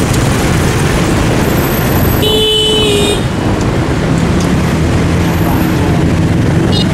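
Motorbike and street traffic running steadily, with a vehicle horn toot lasting about a second, starting a little over two seconds in.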